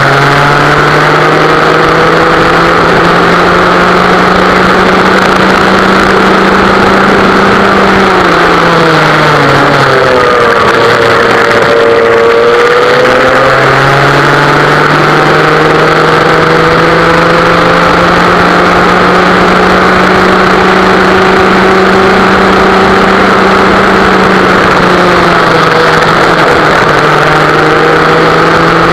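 Vintage West Bend two-stroke kart engine running hard, heard onboard the kart. Its pitch holds high, drops about nine seconds in as the kart slows for a corner, then climbs back under acceleration, and dips and rises again near the end.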